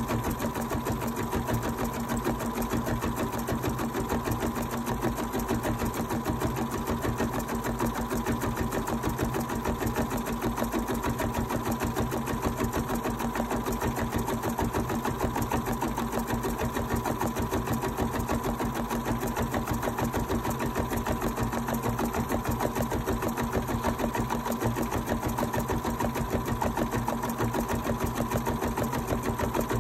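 Bernina 790 embroidery machine stitching out an appliqué design in its hoop, running steadily at an even, rapid stitch rate with a constant hum underneath.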